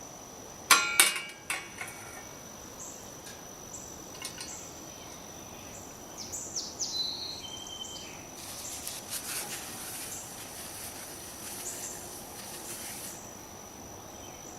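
Steady high-pitched insect drone, typical of crickets, with a few short bird chirps midway. About a second in come a couple of sharp, ringing clinks, the loudest sounds, and later a stretch of soft rustling hiss.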